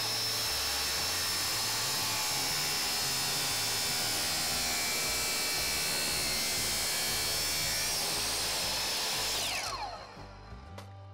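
Ryobi miter saw motor running at full speed with a steady high whine while its blade cuts through metal, throwing sparks. Near the end the trigger is released and the whine falls away as the blade spins down.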